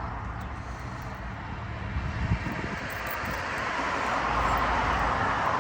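Steady motor-vehicle running noise with a low hum, swelling a little toward the end.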